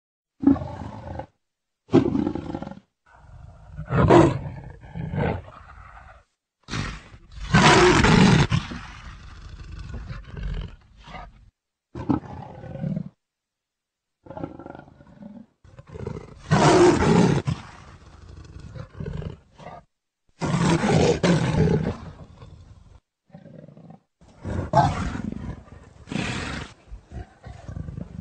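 Leopard calling: a series of calls about a second long, separated by short pauses.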